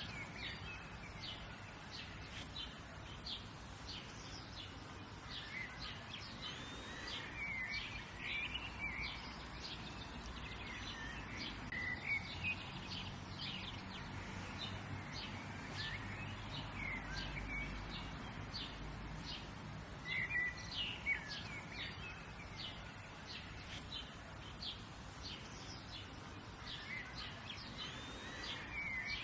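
Several songbirds chirping and singing, with short quick notes and little trills coming again and again, over a steady low background hush.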